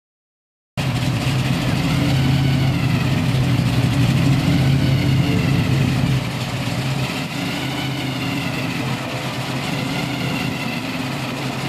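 Supercharged V8 of a green muscle car idling loud and steady. It cuts in abruptly about a second in after silence and drops a little in level about six seconds in.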